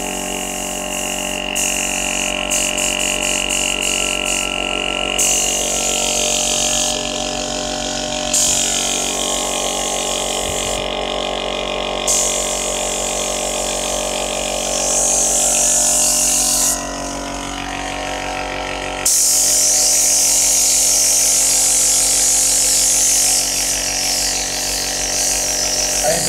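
Gravity-feed spray gun hissing in stretches as the trigger is pulled and released, spraying thick latex paint through compressed air, with short pauses and the longest break about two-thirds of the way through. Under it runs the steady hum of a small 1.8 hp air compressor.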